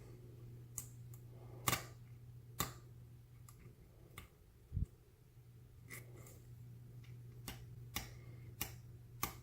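Faint, irregular sharp clicks of a lock pick and tension wrench working the pins in the keyway of an Abus 80/45 padlock, with one dull low knock about halfway through.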